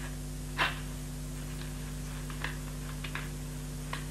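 Steady low electrical hum on an old film soundtrack, with a few short soft clicks and rustles. The loudest comes about half a second in.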